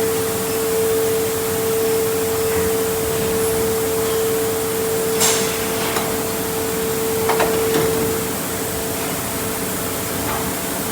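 A machine running with a steady hum under a bed of noise, with a few sharp clicks or knocks in the second half.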